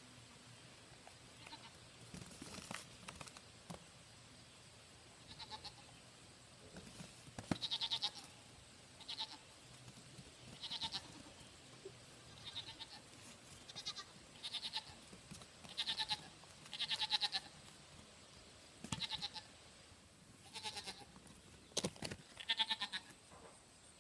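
Goat kids bleating: about a dozen short, high calls, coming more often after the first few seconds, with a few light knocks in between.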